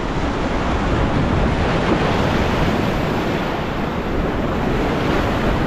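Ocean surf washing and breaking in a steady, loud wash, with wind noise on the microphone.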